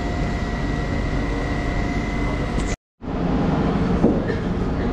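Munich S-Bahn electric train running, a steady rumble with a high, even whine over it. It cuts off abruptly about three seconds in, and a different steady rumble follows without the whine.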